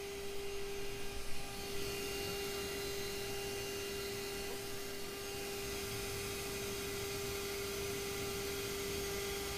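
Machine-driven fret-slotting saw spinning over a guitar fretboard, running with a steady hum while cutting the fret slots. A few uneven bumps in loudness come in the first two seconds.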